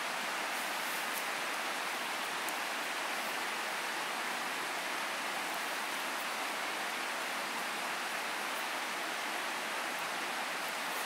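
Steady, even rushing noise with no rise or fall, like flowing water, with a few faint ticks over it.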